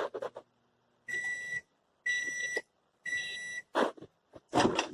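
Microwave oven's end-of-cycle signal: three steady electronic beeps about a second apart, each lasting about half a second, meaning the heating time has run out. Loud handling noises follow near the end.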